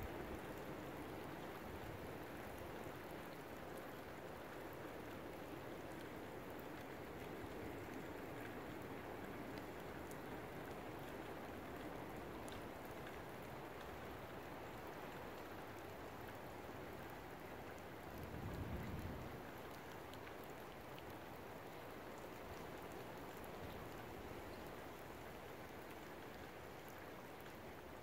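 Steady hiss of storm rain and wind as a squall line passes, with a brief low rumble swelling about two-thirds of the way through.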